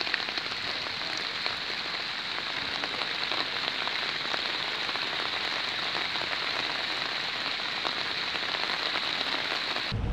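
Steady rain falling on wet stone paving and fallen leaves: an even hiss dotted with many small drop ticks. It cuts off abruptly near the end.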